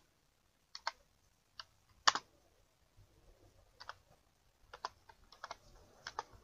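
Computer keyboard being typed on in slow, uneven keystrokes: single taps and quick pairs with pauses between them, the loudest about two seconds in.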